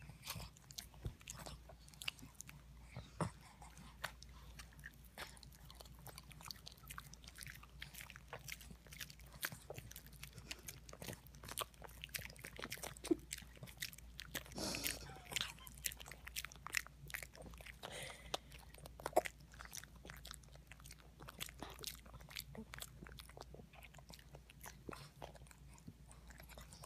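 Boston Terriers chewing soft banana and licking their lips, a run of quick wet mouth clicks, with a short breathy sound about halfway through.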